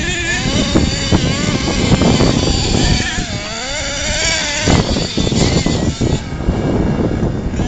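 Small nitro engine of a radio-controlled monster truck revving up and down as it is driven, its high pitch rising and falling with the throttle throughout.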